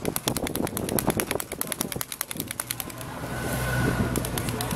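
A rapid, even ticking, about a dozen ticks a second, fills the first half. From about three seconds in, a car engine approaches and grows louder toward the end.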